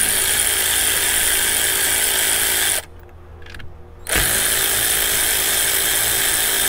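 Cordless electric ratchet spinning a nut at the truck battery's terminals. The motor runs steadily for about three seconds, stops, then starts again about four seconds in.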